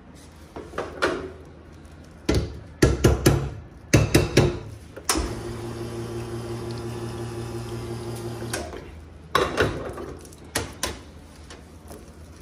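Espresso machine work: a run of sharp metal knocks and clatter from the portafilter, then about three and a half seconds of the machine's pump humming with water running through the group head, which cuts off suddenly. A few more knocks follow near the end.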